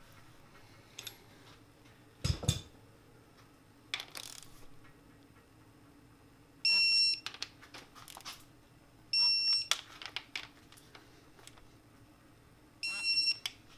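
Electronic torque wrench beeping three times, a short two-tone beep each time a connecting-rod cap nut reaches its set torque of 22 ft-lb. Between the beeps there are clicks of the wrench and socket on the nuts, and a dull thud about two seconds in.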